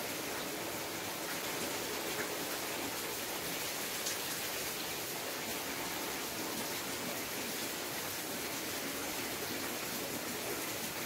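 Steady rain falling: a continuous, even hiss with a couple of faint drop ticks.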